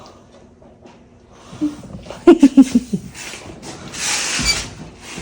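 A person laughing in a quick run of falling 'ha' sounds, followed near the end by a loud breathy hiss that ends in a low thump.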